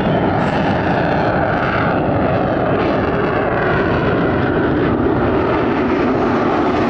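Lockheed U-2 Dragon Lady's jet engine running loud and steady as the aircraft flies slowly along the runway.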